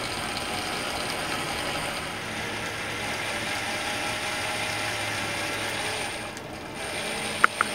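Electric drill running steadily as its extra-long 3/8-inch bit bores lengthwise through a raw carrot, with a whine from the gears; the motor stops about six seconds in.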